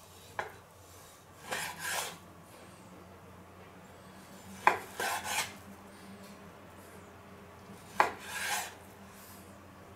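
Kitchen knife slicing medallions from a meat fillet on a wooden cutting board: three times, a sharp tap of the blade on the board followed by a short scraping rasp.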